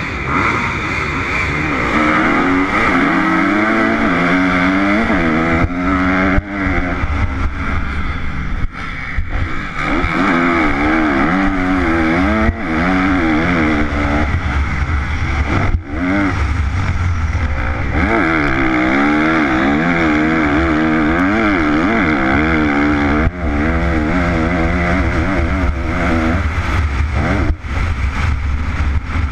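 A 2013 Kawasaki KX250F's single-cylinder four-stroke motocross engine heard from an onboard camera while riding a dirt track, its pitch rising and falling over and over as the throttle is worked, with a few brief drops in level. Heavy wind rush on the microphone runs under the engine.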